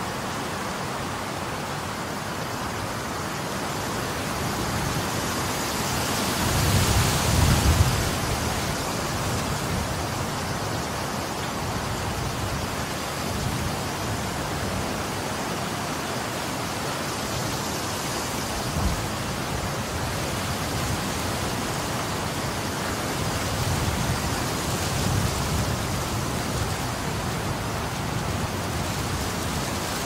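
Strong wind buffeting the microphone as a steady rushing noise, with heavier gusts rumbling about a quarter of the way in and again near the end.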